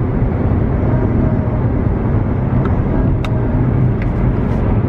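Steady low rumble of a car driving, with a faint wavering whine and a few light clicks.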